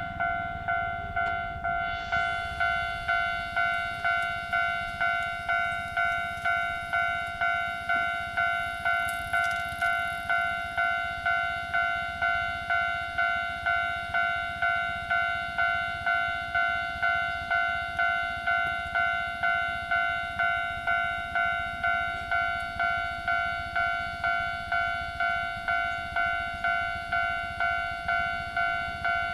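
Railway level-crossing warning bell ringing, a two-tone ding repeating a little under twice a second, each ding fading before the next. A broader hiss joins underneath from about two seconds in.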